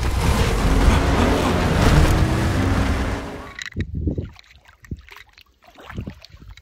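Loud rushing, churning water with a low hum underneath, which cuts off about three and a half seconds in and leaves only scattered short water sounds.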